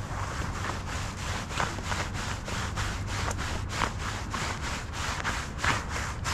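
Rhythmic rasping or scraping strokes, several a second, over a low steady hum.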